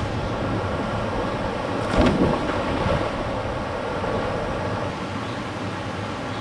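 Steady rushing of a river cascading over rocks into a pool, with a loud splash about two seconds in as a person jumps from a rock ledge into the water.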